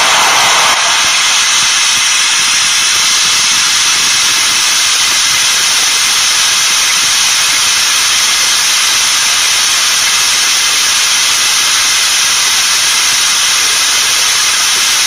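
Pink noise played at high power through a Selenium JBL D220Ti one-inch titanium compression driver, band-limited by a crossover so it comes out as a steady, bright hiss with little low end. It measures about 125 to 127 dB on a meter 40 cm away.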